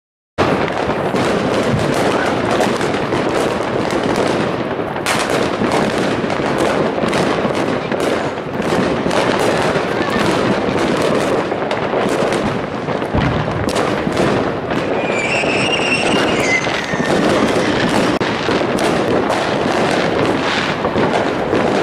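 A dense, unbroken barrage of fireworks and firecrackers going off all around, with rapid overlapping bangs and crackling. A brief high whistle cuts through about two-thirds of the way in.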